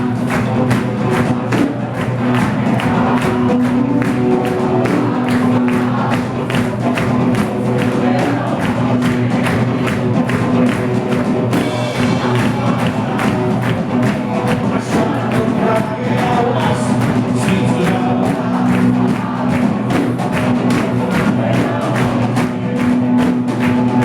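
Live band music with a steady beat, with voices singing.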